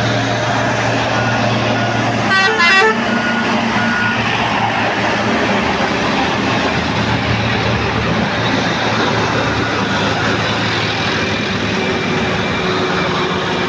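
Diesel engine of a Hino heavy truck hauling an excavator on a lowbed trailer, running steadily under load as it passes slowly. A vehicle horn sounds one short, rapidly pulsing blast about two seconds in.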